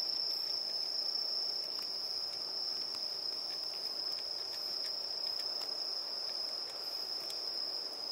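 A steady, unbroken high-pitched insect trill, with faint scattered clicks from a cat crunching dry kibble off a plate.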